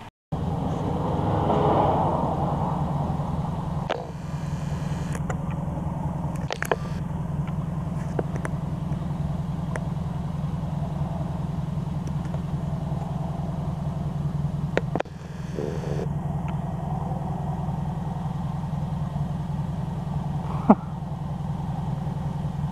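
A steady, even-pitched low mechanical hum from a running motor, broken twice by brief cuts, with a few light clicks and one sharper click near the end.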